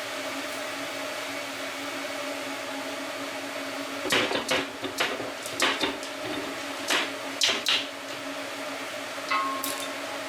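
A handful of sharp knocks and clicks, clustered in the middle, from tools and metal parts being handled at the bench, over a steady low hum.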